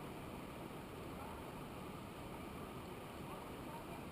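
Steady rushing noise, even throughout.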